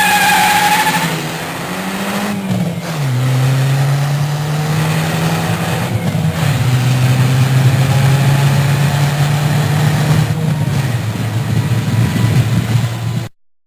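A car engine running at steady high revs, its pitch dropping in steps twice, after a tire squeal that ends about a second in. The sound stops abruptly near the end.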